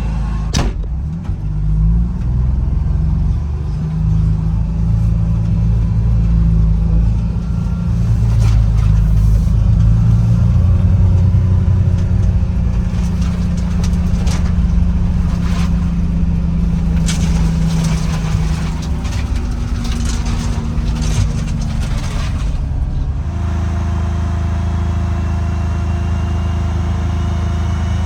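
Combine harvester's diesel engine running as the machine is driven, its pitch shifting a few times and then settling into a steady tone near the end. Scattered knocks and rattles come through in the middle.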